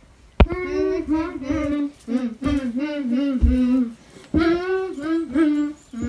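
A child singing a tune in long held notes, phrase after phrase. A sharp click comes about half a second in, just as the singing starts.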